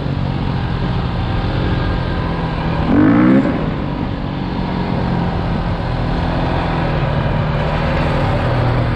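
Quad bike engine running steadily under way on a rough dirt track, with tyre and wind noise. About three seconds in there is a brief louder, wavering sound.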